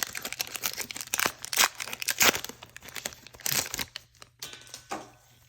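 Foil wrapper of a Pokémon trading-card booster pack crinkling and tearing as it is ripped open by hand: a run of irregular crackles and rips, loudest in the middle, dying down near the end.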